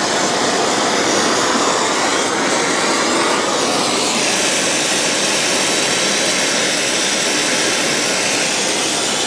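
Brazing torch flame running with a steady, loud rushing hiss as it heats the metal for a braze; its tone shifts about four seconds in.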